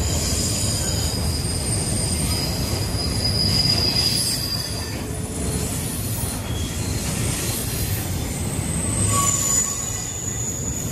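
Freight car wheels squealing against the rails as a train rolls through the yard. Several high, steady squeal tones fade in and out over the low rumble of the moving cars.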